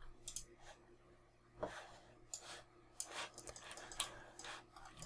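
Faint, scattered clicks of a computer mouse and keyboard, more of them in the second half, over a low steady hum.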